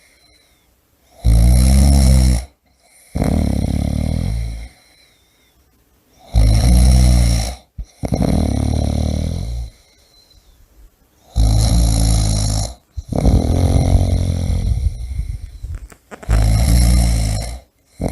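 A person snoring in a steady rhythm. Each cycle is a loud, low, rattling snore followed by a quieter, breathier one, repeating about every five seconds, four times.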